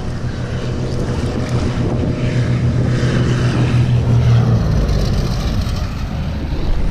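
Small propeller plane flying low overhead on its landing approach: a steady low engine-and-propeller hum that grows louder, then drops to a deeper rumble as it passes over about four and a half seconds in.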